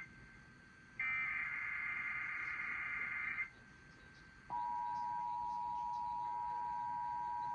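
Emergency Alert System broadcast: the last burst of the SAME digital header, a harsh high-pitched data screech lasting about two and a half seconds, follows a one-second pause. After another second of quiet, the steady two-tone EAS attention signal begins about halfway through and holds.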